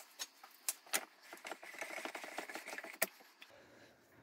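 Light clattering and a few sharp knocks as a block of wood is handled into the jaws of a steel bench vise, with the loudest knock about three seconds in.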